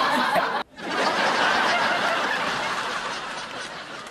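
Laughter from a group of people. It breaks off briefly about half a second in, then comes back as a dense, many-voiced laugh that slowly fades.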